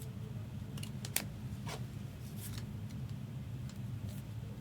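Trading cards being handled, giving a handful of short, sharp slides and clicks of card stock and plastic sleeves, over a steady low hum.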